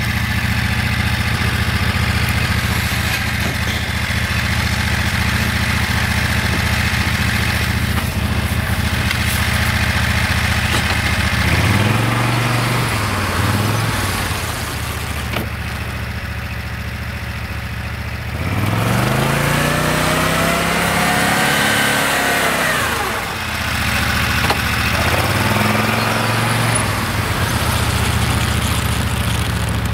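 The 30 hp Loncin engine of a homemade SM-002 snowmobile running steadily under load in deep powder snow, then revved up and back down three times, the longest rev a little past the middle.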